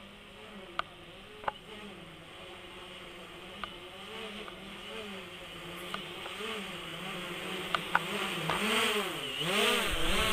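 FIMI X8 SE quadcopter's propellers and motors buzzing as it descends to land, the pitch wavering up and down and the sound growing louder as it comes closer, loudest in the last second as it reaches the ground. A few short sharp clicks are heard along the way.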